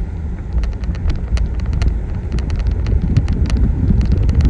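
Car driving, heard from inside: a steady low road and wind rumble, with many scattered sharp ticks and clicks.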